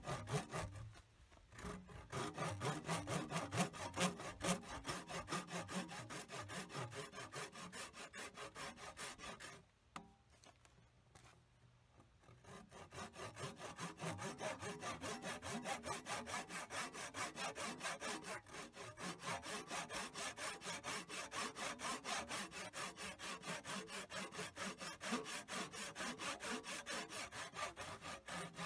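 Hand-tool strokes rasping back and forth against the work in a steady rhythm, with a break of about two seconds partway through.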